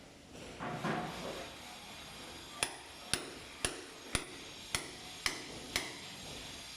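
Hammer striking: seven sharp, ringing blows about half a second apart, starting a little over two and a half seconds in, after a short rough noise about a second in.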